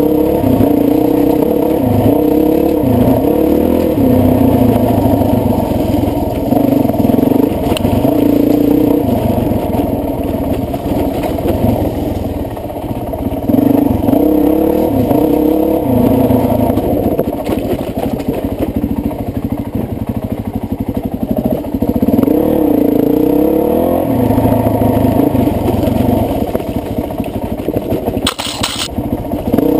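Dirt bike engine revving up and down as it is ridden along a trail, its pitch climbing and dropping with the throttle every second or two.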